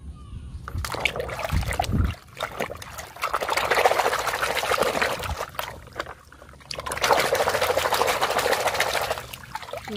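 Muddy water splashing and sloshing in a basin as a hand churns a plastic toy truck through it to wash off the mud, in two long bouts with a short pause between them.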